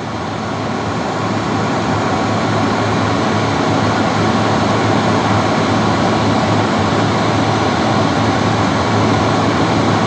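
Stainless-steel electric hand dryer running: a steady rush of blown air over a low motor hum. It grows louder over the first couple of seconds, then holds even.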